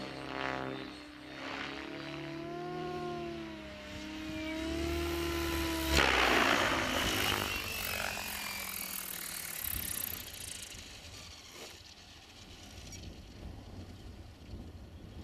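Blade 700X electric RC helicopter flying: a whine that wavers in pitch, then a sudden loud rush of rotor noise about six seconds in with a whine falling slowly in pitch as it passes close. The sound fades after about ten seconds as the helicopter comes down to land.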